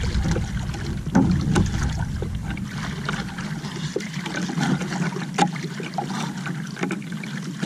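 Water sloshing and lapping against a small outrigger canoe's hull and around the angler's legs, with scattered small knocks. Wind rumbles on the microphone for about the first second.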